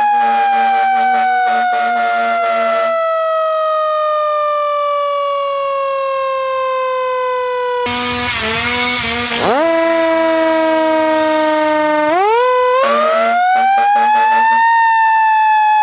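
Siren wailing, its pitch falling slowly over several seconds and then winding back up, with a fast pulsing tone under it at the start and near the end. About halfway a burst of hiss and a quick pitch sweep lead into a few seconds of steady, held horn-like tones before the siren rises again.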